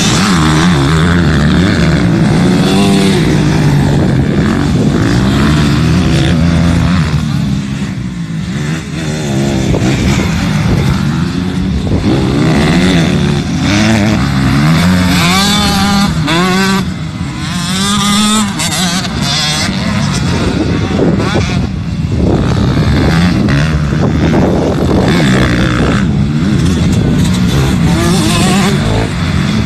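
Motocross bike engine working hard, its pitch rising and falling again and again as the throttle is opened and shut. The sound drops briefly about eight and seventeen seconds in.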